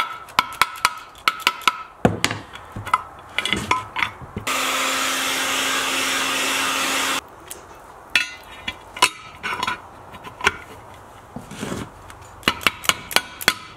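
Soft-faced mallet knocking on a part in the Honda S600's aluminium chain-drive case, then a Makita heat gun blowing a steady hiss with a low hum for about three seconds as the case is warmed so the part will go in easily, then a quick run of mallet taps near the end.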